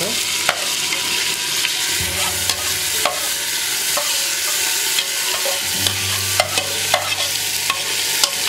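Marinated chicken sizzling and spitting as it drops into hot ghee in an aluminium pot, with sharp clicks and scrapes from a spatula scraping it out of the bowl.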